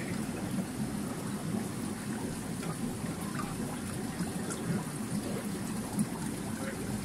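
Aquarium water trickling steadily, as from a tank filter or pump outflow, with a few faint small clicks in it.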